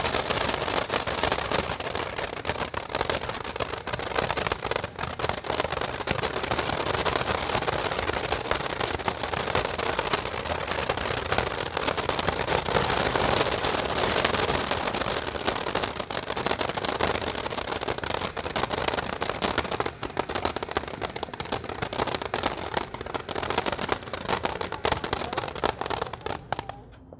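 Firework crackling and popping in a dense, unbroken rapid stream with a steady hiss, cutting off suddenly near the end.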